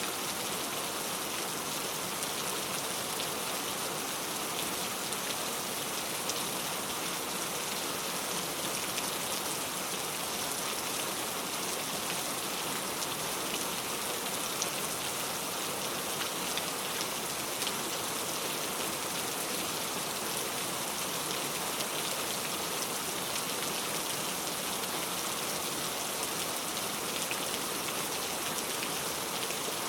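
Steady rain falling: an even hiss dotted with fine ticks of individual drops.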